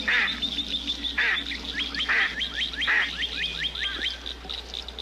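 Mallard duck quacking four times, about a second apart, over a run of quick, high chirps from smaller birds that each slide downward in pitch.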